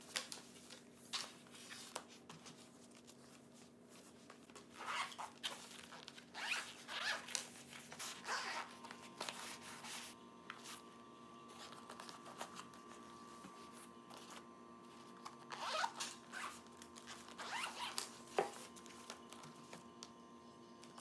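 Zipper on a padded fabric laptop sleeve pulled in a run of quick strokes, in two bursts about ten seconds apart, with knocks from handling the sleeve and the laptop.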